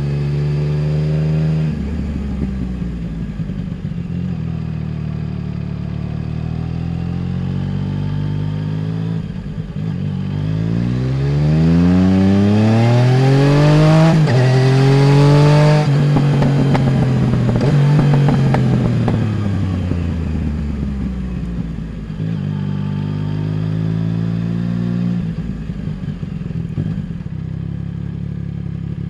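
Yamaha Tracer 900 GT's 847 cc inline three-cylinder engine through a full Roads Italia aftermarket exhaust, heard from under the passenger seat. It eases off with crackling as the bike slows, then revs hard with a steeply rising pitch from about ten seconds in. After the peak it rolls off and drops in pitch again, with a short pickup near the end.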